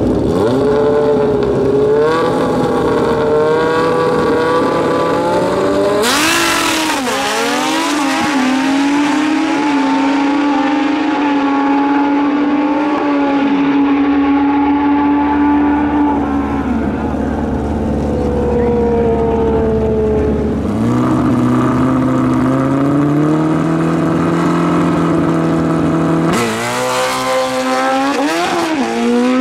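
Drag racing motorcycle engines running and revving, their pitch climbing, dropping and stepping between levels. Two sudden louder surges of engine noise with sweeping pitch come about six seconds in and again near the end.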